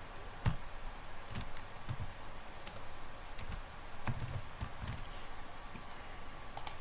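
Computer keyboard typing: scattered, irregular key clicks, a dozen or so, as a short piece of code is entered.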